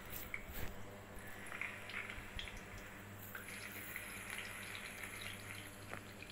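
Marinated fish pieces frying in hot mustard oil in an iron karahi: a faint, steady sizzle with scattered small crackles and pops.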